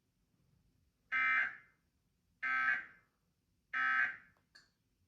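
Emergency Alert System End of Message (EOM) data signal: three short, evenly spaced bursts of buzzing digital tones about a second and a quarter apart. They mark the end of the broadcast alert.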